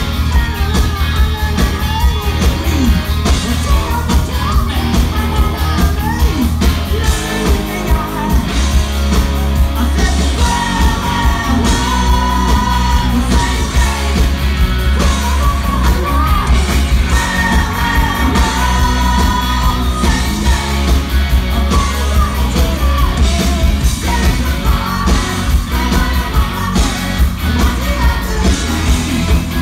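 Rock band playing live: a male lead singer singing into a handheld mic over electric guitars played through amps, bass and drums, loud and unbroken.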